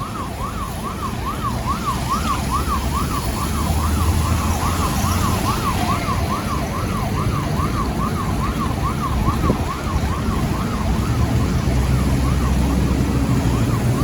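Fire appliance siren yelping, a fast up-and-down sweep about two to three times a second, fading away near the end over the low rumble of a vehicle engine.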